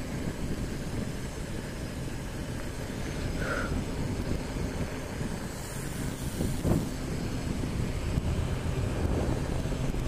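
Wind rushing over the microphone of a handlebar-mounted camera as a bicycle rides down a paved street, a steady low rumble. A brief thump about two-thirds of the way in.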